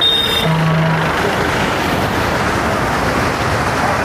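Floodwater of a river in spate rushing past, a loud steady even roar. A short low tone sounds briefly about half a second in.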